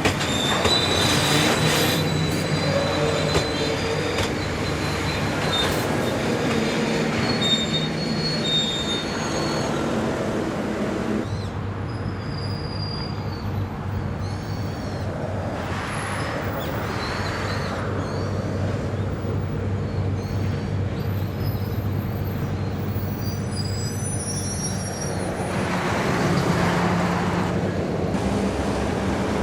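Diesel-hauled freight train moving through the station, its locomotive engine running with a steady drone. Wheels squeal on the rails during roughly the first ten seconds.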